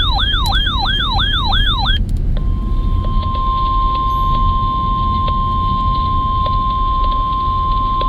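A siren warbling rapidly up and down, about three sweeps a second, cuts off about two seconds in. After a short gap the NOAA Weather Radio 1050 Hz warning alarm tone starts, a steady single pitch that signals an urgent weather warning, over constant low background noise.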